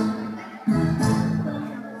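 Backing music between sung lines: a chord struck about two-thirds of a second in and slowly dying away.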